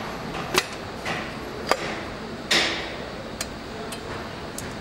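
Engine-assembly-line work noise: metal parts and tools giving several sharp clicks and taps, with a short hissing clatter about two and a half seconds in, over steady factory background noise.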